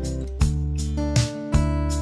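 Background music: acoustic guitar strummed in a regular rhythm over sustained low notes.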